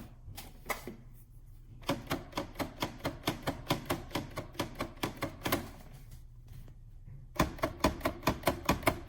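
Baratza Encore burr coffee grinder cutting on and off, a rapid run of clicks about four or five a second over a low hum. The clicks start about two seconds in, pause, and resume near the end. The owner takes the on-off cutting for a contact fault.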